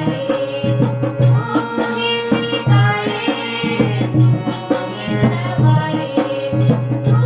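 Hindi devotional bhajan music: a melodic line over rhythmic hand-drum beats.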